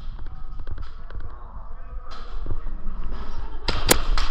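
Footsteps and gear knocking as an airsoft player moves indoors, over a low rumble of handling noise on the microphone. Near the end comes a quick cluster of sharp cracks and clicks.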